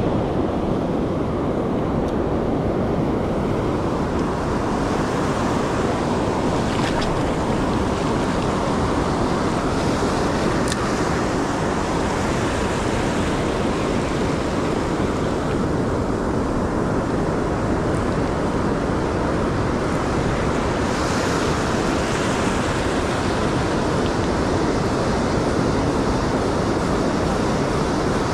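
Steady wash of ocean surf breaking on a beach, with wind rumbling on the microphone.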